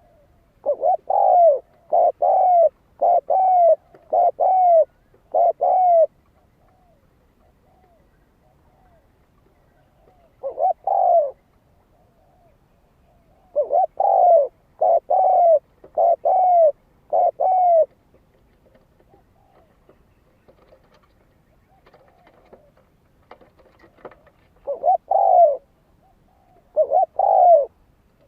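Spotted dove cooing: deep, arching coos in runs, first five in a row, then a single coo, then another five, and two more near the end.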